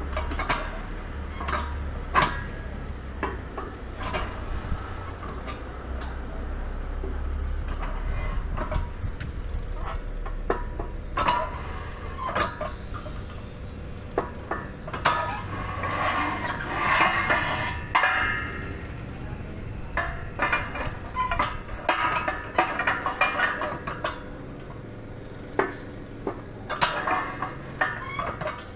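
Homemade lever-operated pipe bender pressing a curve into a round steel pipe: repeated metal clinks and knocks as the lever, die and pipe shift against each other. There are longer stretches of metal-on-metal scraping about halfway through and again a little later.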